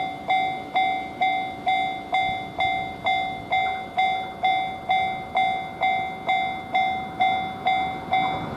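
Japanese railway level-crossing warning bell ringing its repeating "kan-kan" strikes, about two a second, each strike a clear ringing tone that fades before the next.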